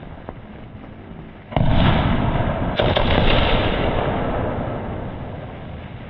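Aerial firework shells from a 60-shot skyshot cake bursting overhead: two sharp bangs a little over a second apart, each echoing away over several seconds.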